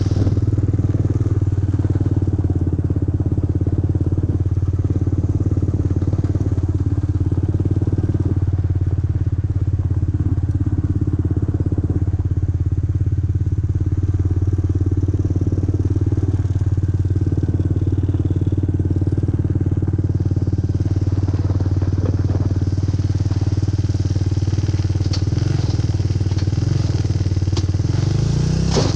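Four-wheeler (ATV) engine running steadily through a ride, with a few short clicks near the end.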